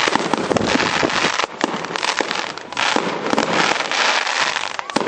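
Fireworks display going off as a dense, continuous crackle of many small sharp bursts.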